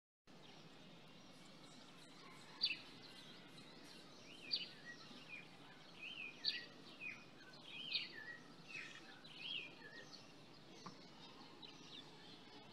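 Faint bird chirps: a run of short, quick chirping calls, about a dozen, that starts about two seconds in and thins out near the end, over a faint steady background hiss.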